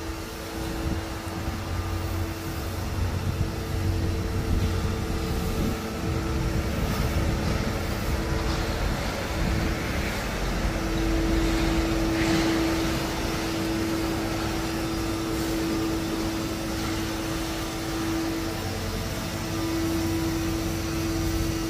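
Steady mechanical drone of running machinery, a constant hum over a low rumble. The hum grows louder about halfway through, dips briefly, then comes back.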